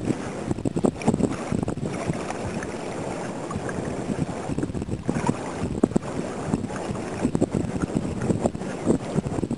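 Wind buffeting the microphone in a low, steady rumble, broken by frequent irregular thumps from the walker's footsteps on sand.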